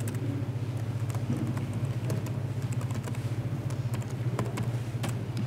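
Laptop keyboard being typed on to log in: scattered, irregular key clicks over a steady low hum.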